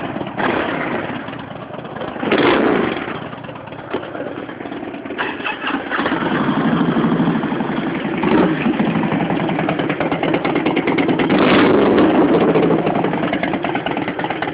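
V-twin motorcycle engines running, revved up briefly a few times. About five seconds in, a bike turns over on its starter and catches, settling into a steadier idle.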